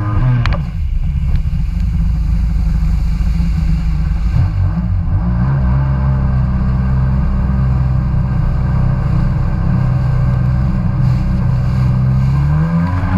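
Kawasaki Ultra 150 jet ski's two-stroke three-cylinder engine running at a steady cruising speed, a steady drone that rises a little in pitch about four seconds in and dips just before the end.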